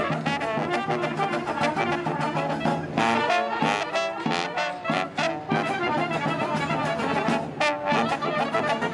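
Street brass band playing live: trumpets, a clarinet and tubas over a bass drum beat.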